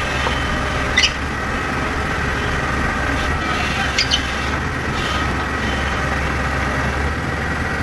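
Tata Hitachi EX110 crawler excavator's diesel engine running steadily as the machine drives down off a flatbed trailer on its steel tracks. Two brief sharp metallic sounds from the tracks, about a second in and again about four seconds in.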